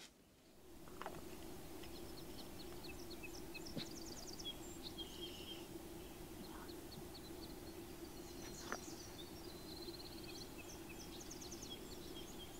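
Faint songbirds calling and singing: many short, high chirps and quick trills from several birds, over a steady low hum.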